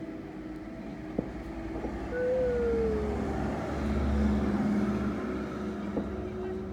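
Fireworks going off: a few sharp distant bangs over a low rumble that swells in the middle, with a short falling whistle.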